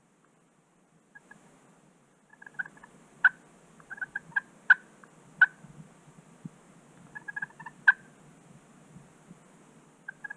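Wild turkey calling in short rattling bursts of notes, three main bursts a second or so apart, with a few sharp loud clucks standing out and a brief burst near the end.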